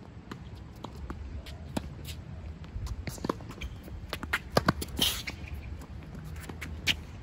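Tennis rally on a hard court: racket strikes and ball bounces in an irregular series of sharp pops. The loudest hit, a close forehand, comes about four and a half seconds in, with shuffling footsteps in between.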